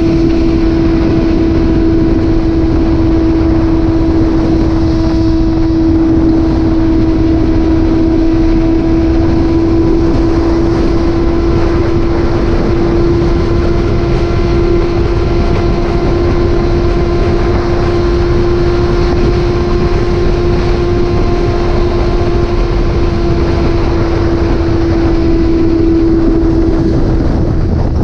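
Motorcycle engine running at steady revs while cruising, with heavy wind rush on the microphone.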